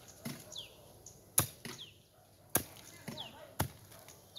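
A long-handled hoe chopping into the earth and roots at the base of a tree stump. It makes sharp strikes about once a second, three of them loud and the rest fainter.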